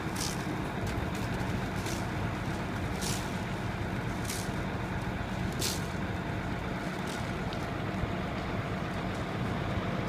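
Truck engine running steadily with a low, even hum, overlaid by short hissing noises every one to two seconds.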